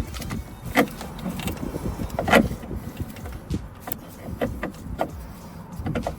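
Scattered metallic clicks and knocks as a replacement door check is handled and worked into a car door, the loudest about two and a half seconds in.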